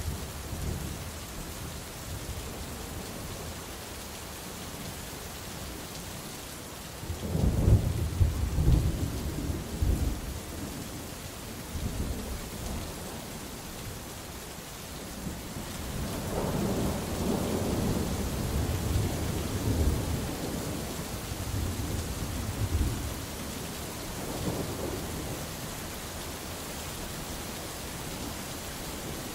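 Steady rain with thunder. A loud thunderclap about seven seconds in rumbles on for a few seconds, and a longer roll of thunder rumbles through much of the second half.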